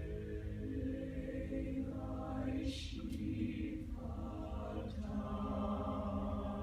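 Teenage mixed-voice choir singing slow, sustained chords, the harmony shifting every second or so, with a hissed "s" sung together about three seconds in.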